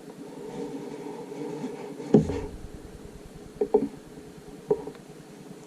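Apple Watch box being handled during unboxing: a solid knock with a low thump about two seconds in, then a quick double knock and one lighter tap, over a steady low hum.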